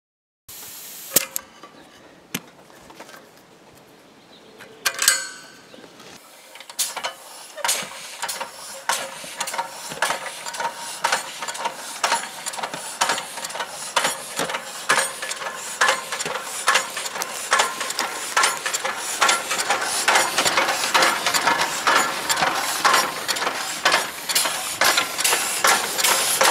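Home-made twin-cylinder compressed-air locomotive, its tractor hydraulic rams driven through spool valves from a welding gas bottle, getting under way. A short hiss about five seconds in, then a regular clatter of air puffs and valve clicks that quickens and grows louder.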